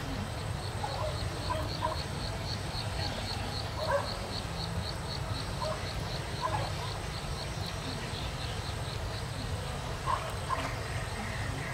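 An insect chirping in a steady high-pitched train of short pulses, about four a second, which stops near the end. Scattered short lower calls come and go over a steady low rumble.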